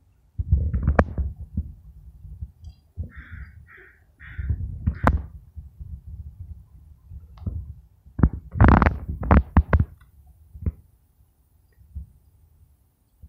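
American crows cawing, three short caws in quick succession a few seconds in. Loud low rumbles and knocks on the microphone come and go around them and are the loudest sound.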